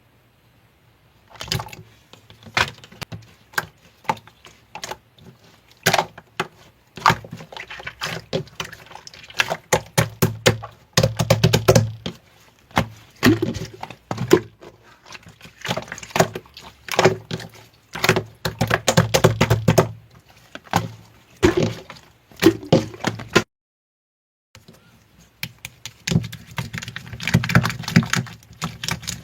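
Slime being squeezed and poked by hand, giving rapid crackling clicks and pops in clusters, with a brief break about three-quarters of the way through.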